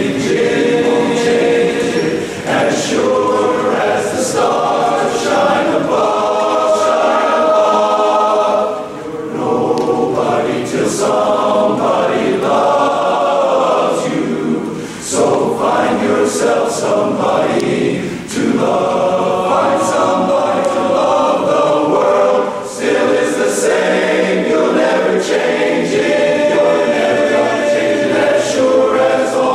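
Large men's barbershop chorus singing a cappella in close harmony, with only brief pauses for breath between phrases.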